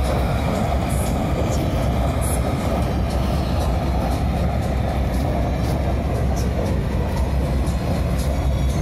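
Combine harvester working a maize field: a steady, loud engine drone with a low rumble and faint mechanical ticking over it.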